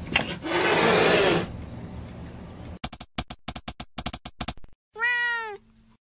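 A cat meowing once, a single call that rises and falls in pitch, about five seconds in. Before it come a loud hissing burst in the first second and a half and a quick run of sharp clicks.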